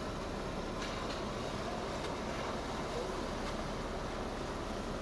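Jeep Wrangler Rubicon Unlimited driving through creek water: the engine runs steadily under a constant rush of noise, with a few faint knocks.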